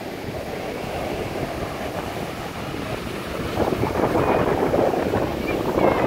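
Small sea waves breaking and foaming up a sandy beach in a steady wash of surf. The surf grows louder from about halfway through as a wave breaks close in, peaking near the end.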